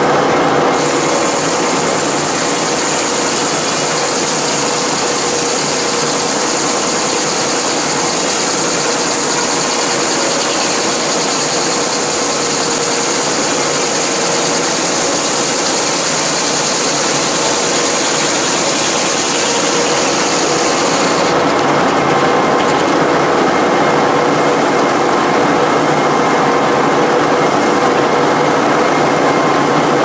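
Frick 00 circular sawmill running, heard from under the carriage next to its feed chain, with a steady mechanical clatter from the carriage drive. The blade cuts through a southern yellow pine log from about a second in until about twenty seconds in, adding a bright high hiss that drops away when the cut ends.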